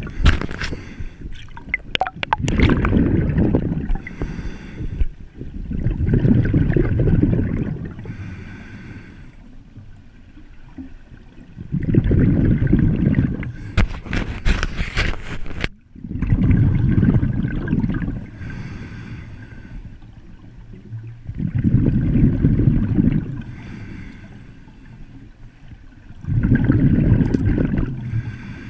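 Scuba diver breathing through a regulator, heard underwater: a rumbling rush of exhaled bubbles about every four to five seconds, with quieter inhalations between. Sharp clicks in the middle are handling of the camera housing.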